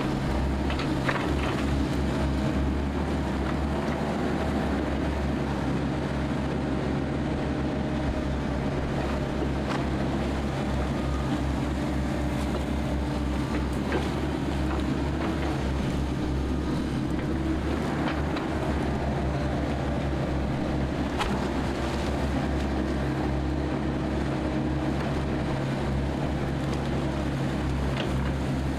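Diesel engines of amphibious excavators running steadily under load while digging swamp mud, with a few sharp knocks from the working machines.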